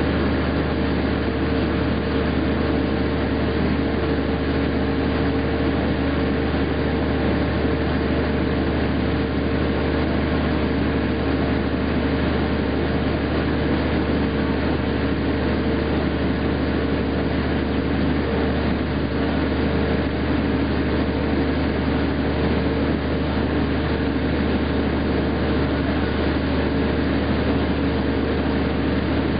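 Walk-behind shot blasting machine running steadily as it blasts a concrete deck, its blast wheel throwing steel shot and its dust-collection fan drawing through the hoses. A constant loud mechanical din: a low hum and a couple of steady tones over a hiss, unchanging throughout.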